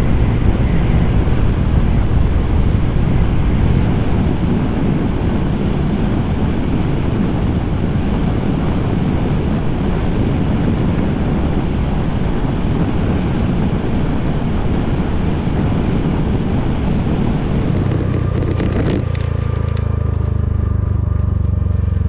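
Wind rushing over the microphone and road noise while riding a Honda Giorno 160 scooter at speed, with the single-cylinder engine's drone underneath. About four seconds before the end the wind hiss eases and a steady engine hum with a faint whine comes through.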